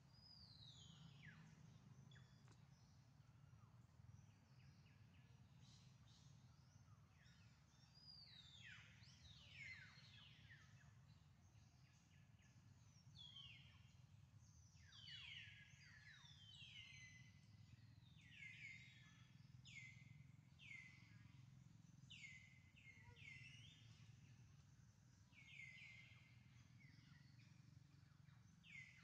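Faint, repeated high calls, each a quick downward sweep, coming thicker through the second half, over a steady low hum.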